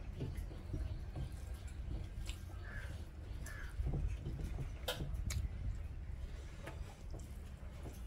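A crow cawing twice, two short calls about half a second apart, with sharp clicks and soft knocks from eating over a low background rumble.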